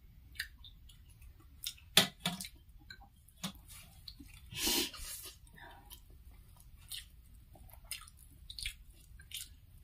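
Close-up eating sounds: chewing and the wet squish of fingers mixing food with gravy. They come as scattered short clicks and smacks, the sharpest about two seconds in and a longer one about halfway through.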